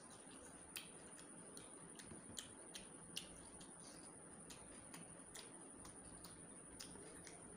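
Faint close-up eating sounds of chicken curry and rice being chewed: a string of small, irregular wet mouth clicks and lip smacks, about two or three a second.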